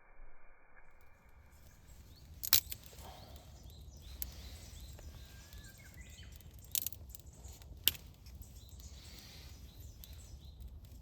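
Outdoor ambience: a steady low rumble with faint high chirps, broken by three sharp clicks or knocks, one a couple of seconds in and two close together later on.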